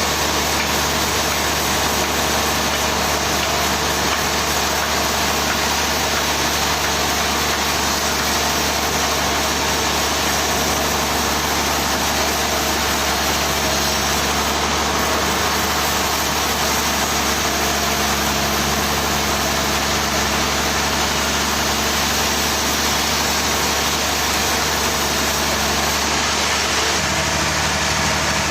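Sawmill machinery running steadily: a constant engine hum under a loud, even noise, with a slight change in the hum near the end.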